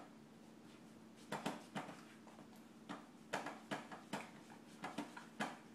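A small child handling a cotton dress: a run of short, irregular rustles and soft taps, starting about a second in.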